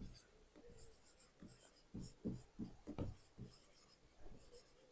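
Faint sound of handwriting: a quick run of short strokes about two to three and a half seconds in.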